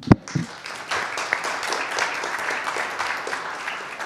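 Audience applauding, starting about a second in, after one loud thump at the very start.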